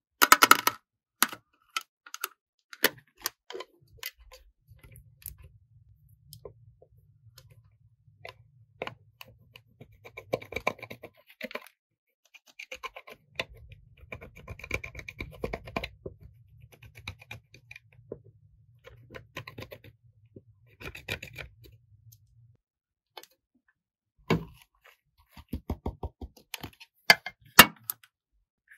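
Sharp plastic clicks and taps as an eyeshadow palette's clear lid is handled, then a thin metal tool scraping and crushing the pressed eyeshadow in its pans in scratchy stretches. The palette is clicked and tapped again near the end.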